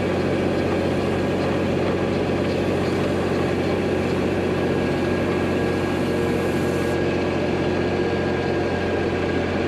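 M35 deuce-and-a-half military truck's diesel engine running steadily with a low, even drone. A short high hiss cuts off suddenly about seven seconds in.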